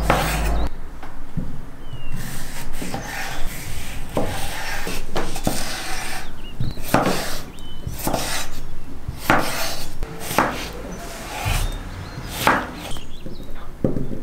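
A chef's knife cutting through a beetroot and knocking on a wooden chopping board: irregular chops, some in quick pairs, with pauses between.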